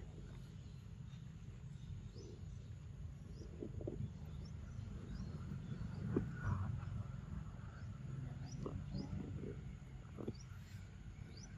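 Quiet outdoor ambience: a steady low rumble with faint, short high chirps scattered throughout and a few soft taps and rustles, the most noticeable about six seconds in.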